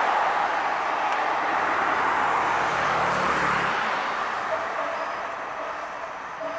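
Aerial ladder fire truck responding with its siren sounding, the siren and traffic noise slowly fading as the truck drives away; a low rumble passes in the middle.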